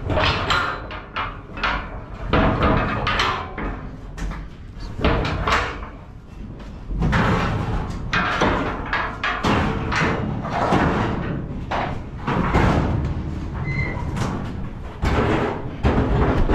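Steel compartment gates of a livestock trailer being swung, slid and latched, with repeated metal clanks and bangs.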